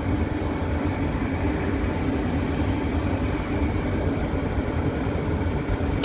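Rooftop gas-fired package HVAC unit running with a steady low rumble and hum, its burners fired and its inducer (venter) motor on, as the unit waits for the main blower to start.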